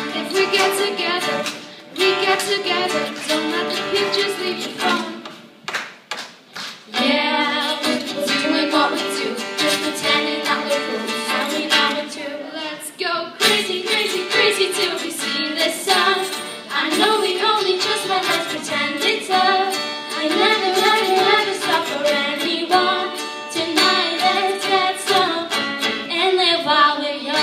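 A live song: a voice singing over a strummed acoustic string instrument, with a brief pause about six seconds in.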